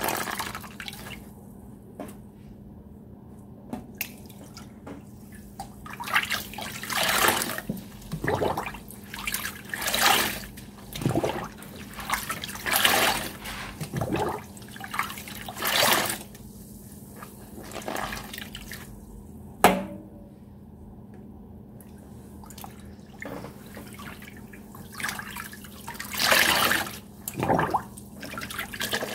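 Wet sponges being squeezed and worked under a running tap in a stainless steel sink partly full of water: repeated splashing, sloshing squeezes with calmer stretches of flowing water between them, as the Ajax cleaning paste is rinsed out.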